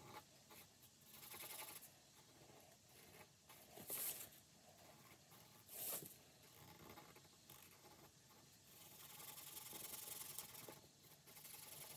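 Faint paper rustling as cash bills and savings-challenge sheets are handled: a few short rustles, then a longer scratchy stretch about nine seconds in.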